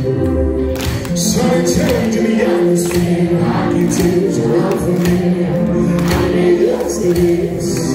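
A live pop band plays with singing: electric guitars, bass, keyboard and a steady drum beat.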